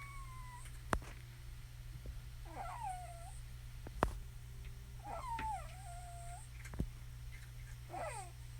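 Pets crying at each other in four drawn-out, wavering calls, each about a second long and a couple of seconds apart: the sound of two animals squaring off on the verge of a fight. A few sharp clicks and a steady low hum lie underneath.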